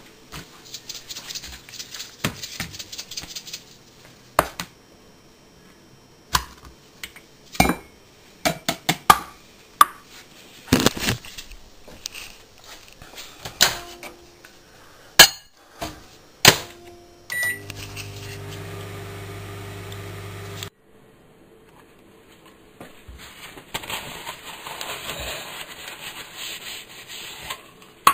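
Kitchen handling sounds: a plastic salt shaker and a ceramic mug knocked, clinked and set down on a wooden worktop, with several sharp knocks. Partway through, a microwave oven beeps and runs with a steady hum for about three seconds, heating the damp salt to dry it, then stops abruptly. Paper towel rustles near the end.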